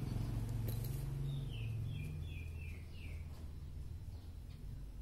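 A small bird chirping a quick run of short, high, slightly falling notes for about a second and a half, over a low hum that fades away during the first few seconds.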